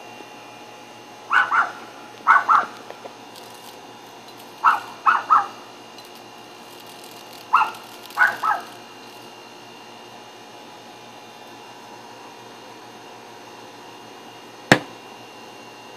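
A dog barking in several short runs of two or three quick barks over the first nine seconds or so, then a single sharp knock near the end.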